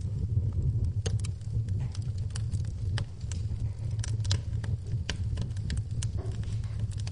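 Wood fire burning in a fireplace: a steady low rumble of flames under frequent sharp crackles and pops from the burning logs, about three a second.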